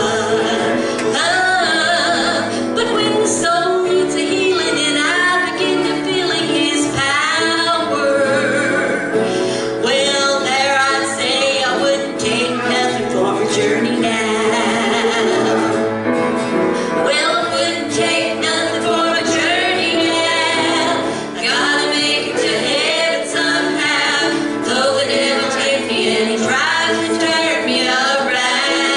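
Women singing a gospel song, one voice leading and others joining in near the end, over guitar accompaniment.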